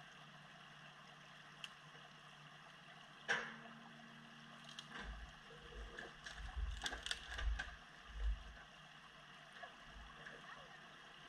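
A diesel machine's engine runs steadily in the background while an uprooted hemlock log is dragged through a rocky creek. There is one sharp knock about three seconds in, then a run of low thumps and clacks from about five to eight and a half seconds as the log bumps over the stones.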